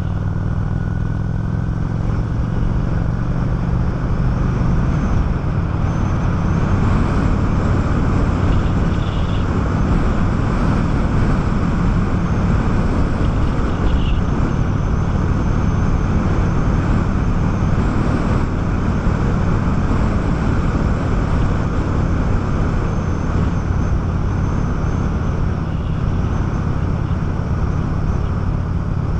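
Honda 650 motorcycle engine running steadily at cruising speed, with heavy wind and road rush over the microphone.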